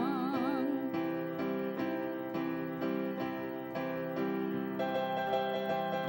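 Korg electronic keyboard played in a piano voice, chords struck about twice a second, getting fuller and brighter about five seconds in. A held sung note with vibrato fades out under it in the first second.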